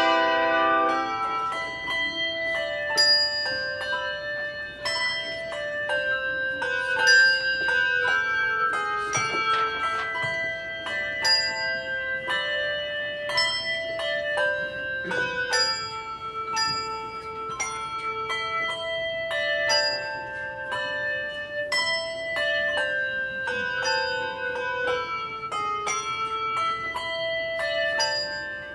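A handbell choir playing a tune: many tuned handbells struck one after another, each note ringing on so that several tones overlap into chords.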